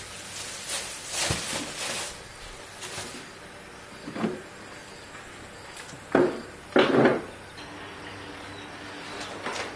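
A few separate knocks and clunks of things being handled and set down, the loudest two about six and seven seconds in.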